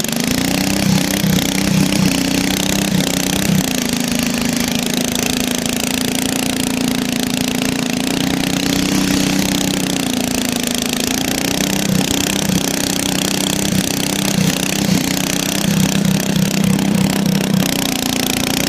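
Riding lawnmower engine running steadily under throttle while the machine tries to drive on a worn, stretched drive belt. The engine note runs smooth through the middle and turns choppy and uneven over the last few seconds.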